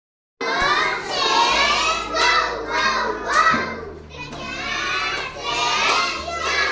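Children's voices, several at once, shouting and chattering without clear words, over a steady low hum. Starts abruptly about half a second in.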